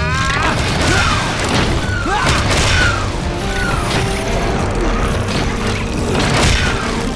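Animated action soundtrack: dramatic music with booming hits and swooping, curving electronic sound effects that repeat about once a second.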